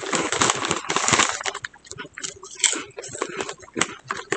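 Potato chip bag crinkling as a hand rummages inside it for a chip, densest in the first second or so, then scattered sharp crackles.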